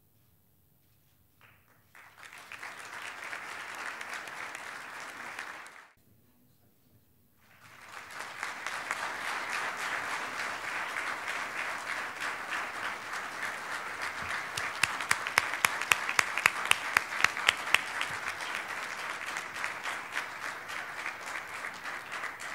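Audience applauding in two stretches. The first is cut off abruptly about six seconds in, and the second starts a second and a half later and runs on. In the middle of the second stretch, a run of loud single claps close by, about four a second, stands out over the rest.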